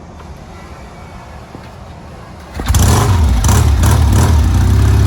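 A motorcycle engine catches with a sudden loud start about two and a half seconds in, is revved a few times, then settles to steady running. Before it, a quieter low rumble.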